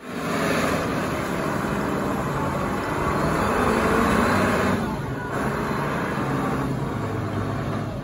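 Large Caterpillar forklift's engine running steadily as the truck drives and turns. The engine gets a little louder about three seconds in and eases off around five seconds.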